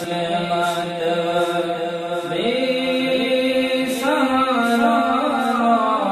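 Devotional music: a chanted vocal melody with long held notes, its pitch stepping up about two seconds in and sliding again a little later.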